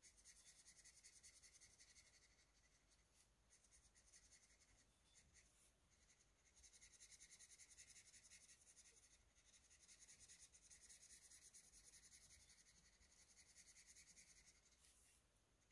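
Faint scratching of a Crayola felt-tip marker colouring on printer paper with quick back-and-forth horizontal strokes. It comes in several runs of a few seconds each, with short pauses between.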